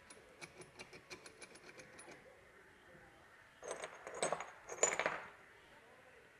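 Steel gearbox parts of a Bajaj Discover 125 engine clicking and clinking: a quick run of light metallic ticks, about six a second, as the gearbox shaft is worked by hand, then a few louder clinks of small steel parts handled a little after halfway.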